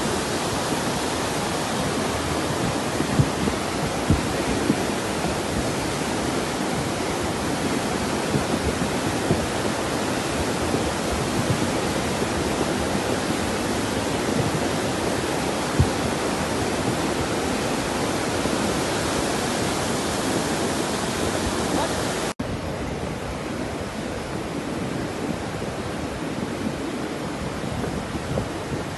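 Lahar, a volcanic mudflow of water, mud and rock, rushing down a river channel as a steady, loud rush, with a few sharp knocks in the first quarter of a minute. A little over twenty seconds in, the sound cuts abruptly to a slightly quieter, duller rush.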